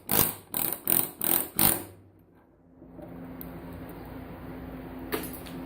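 Pneumatic air chisel fired in about five short bursts against a circuit board, knocking components loose. Then a steady low hum, with a single click near the end.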